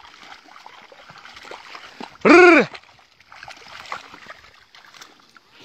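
Mud and water sloshing as a wooden levelling plank and the hooves of two water buffalo move through a flooded paddy field. About two seconds in comes one loud, short voice call that rises and then falls in pitch.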